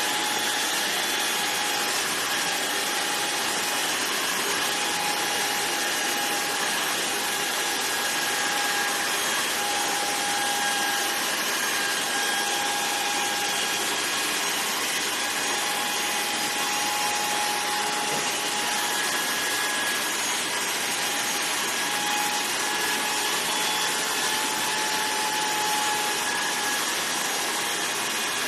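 Electric hair clippers running steadily: an even motor whine over a hiss.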